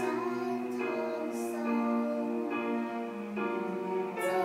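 A girl's voice singing a slow melody in long held notes, changing pitch about once a second, with music.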